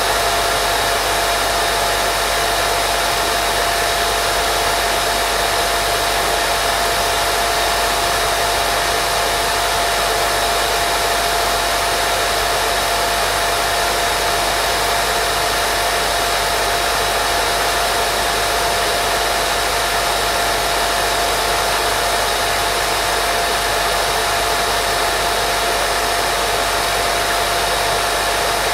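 Steady white noise for lulling a baby to sleep: an even, unbroken hiss with a thin steady whine running through it.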